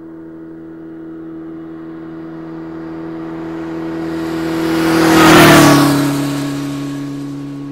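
A steady, humming fly-by effect that swells to a loud whoosh about five and a half seconds in, its pitch dropping as it passes, then fades back to a low drone.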